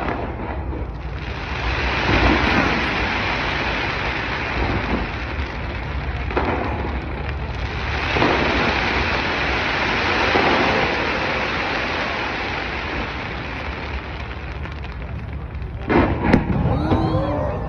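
Aerial fireworks display: a continuous dense crackle over a low rumble of booms, swelling a few times. Near the end comes a cluster of sharper bangs.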